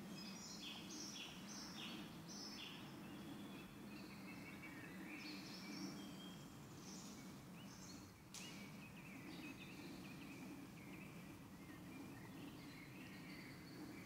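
Faint woodland birdsong: several birds singing short repeated chirping phrases over a steady low background noise, with a single sharp click about eight seconds in.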